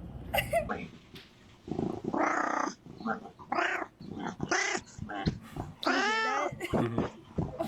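A cat meowing, with one long meow that rises and falls in pitch about six seconds in, among people's voices.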